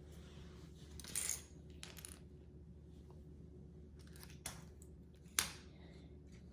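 Small plastic LEGO pieces clattering and clicking as they are picked through and handled: a short rattle about a second in, a few lighter clicks, and a sharper clack near the end that is the loudest.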